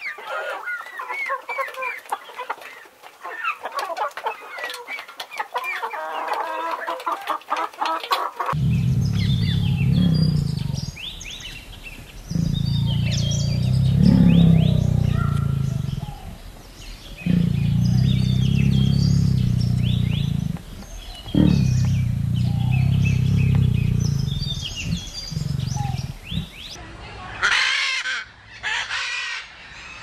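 Chickens clucking for about the first eight seconds. Then a tiger's deep, loud growls come in long stretches of a few seconds each, with small birds chirping faintly behind. Near the end a macaw gives loud squawks.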